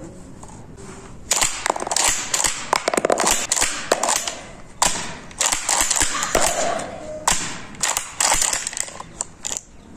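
Rapid, irregular mechanical clicks and knocks with a few sharper clacks, starting a little over a second in: hard parts of a Kral A12 shotgun being handled.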